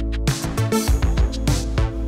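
Background music with a steady drum beat over sustained instrumental tones.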